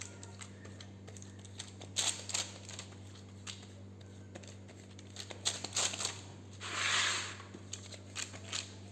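Kitchen scissors snipping into soft risen brioche dough: scattered light clicks and snips at uneven intervals, with a brief rustle about seven seconds in and a steady low hum underneath.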